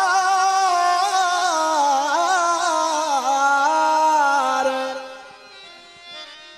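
Sindhi folk song music: a loud, ornamented melodic line with bending, wavering pitches. About five seconds in it drops to a much quieter held tone.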